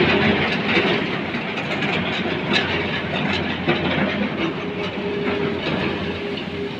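Heavy tracked excavator running: a steady diesel engine drone with metallic clanking and clicking over it, a couple of sharper clanks standing out about two and a half and three and a half seconds in.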